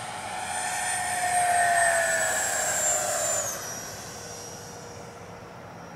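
80mm electric ducted-fan RC jet on a fast low pass: the fan's whine grows louder to a peak about two seconds in, drops in pitch as the jet goes by, then fades away.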